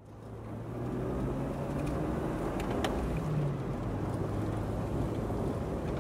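Car driving, heard from inside the cabin: a steady engine and road rumble that fades in over the first second.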